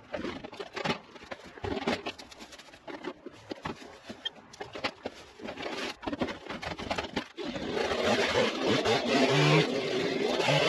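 Irregular rustling and crunching of footsteps and vegetation being pushed through and handled, thicker in the second half, with a few short low tones near the end.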